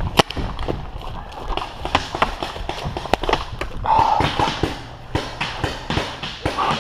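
Footsteps of a player running, an irregular series of hard knocks a few per second.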